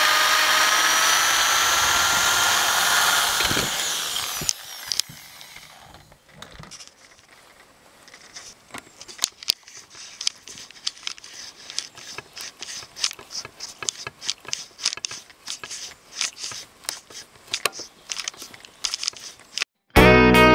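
Electric drill running for about four seconds, drilling into a white plastic conduit fitting, its motor whine rising slightly. It then fades, and a run of irregular clicks and scrapes follows as screws are turned into the plastic by hand with a screwdriver. Guitar music cuts in at the very end.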